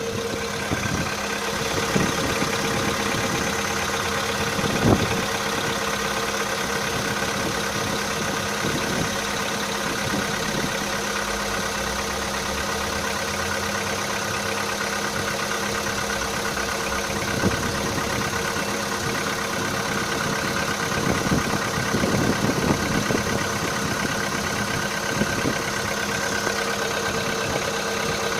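Volkswagen Jetta's CFNA 1.6-litre four-cylinder petrol engine idling steadily from cold, with a few isolated sharp clicks. The owner can't tell whether it knocks when cold, though a knock is clearly heard once it is warm.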